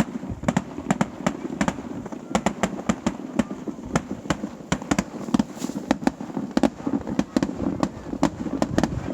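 Fireworks going off in a rapid, irregular string of sharp bangs and cracks, several a second, over a rumble of echoing booms.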